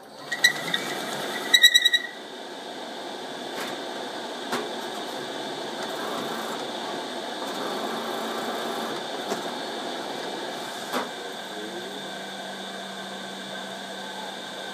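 HP Designjet T7100 turret motor and gear train running. Rapid squeaks burst out about a second and a half in, then settle into a steady whirr with a thin high whine and a few clicks. The squeaking is the sign of a dry gear that needs grease.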